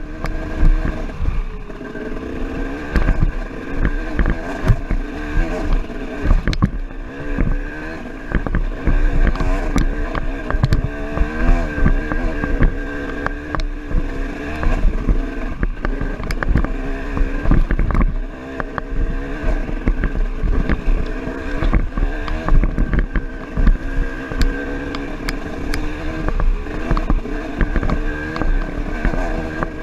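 Dirt bike engine running under way, its pitch rising and falling constantly as the throttle is worked, with frequent knocks and rattles from the bike over rough trail.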